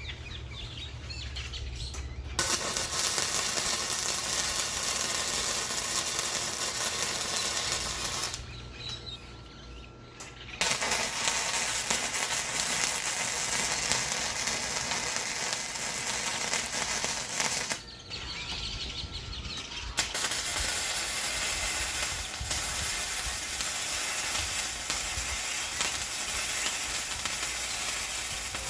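MIG welding on steel square tubing: three runs of steady crackling sizzle, each several seconds long, with short breaks between the beads.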